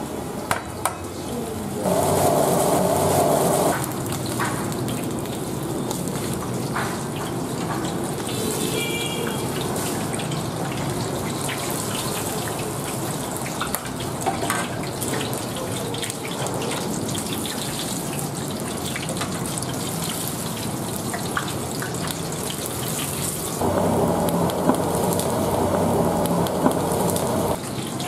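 Food deep-frying in a steel wok of hot oil: steady sizzling and bubbling, with short clinks of a metal skimmer against the wok. Twice a louder steady hum rises over it, for about two seconds near the start and about four seconds near the end.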